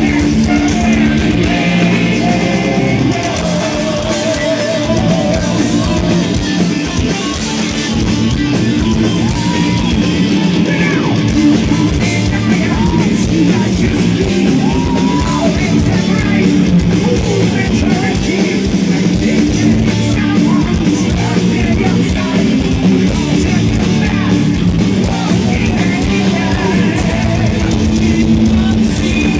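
A heavy metal band playing live over a loud PA: distorted electric guitars, drums with fast kick-drum strikes, and a singer.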